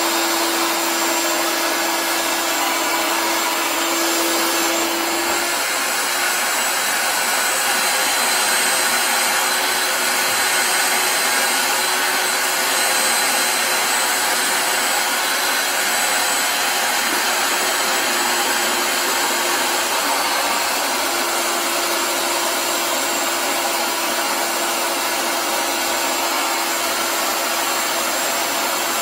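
Ridgid wet/dry shop vacuum running steadily with a hum and a high whine, its hose drawing on a blocked toilet drain that is not giving up the clog.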